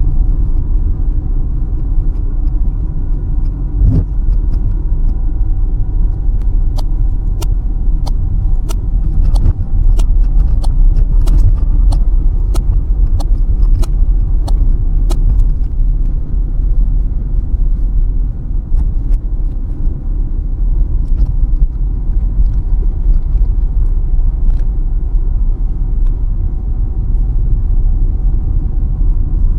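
Car cabin road noise while driving: a steady low rumble of tyres and engine. A single knock comes about four seconds in, and a run of sharp ticks, about two a second, goes on for several seconds in the middle.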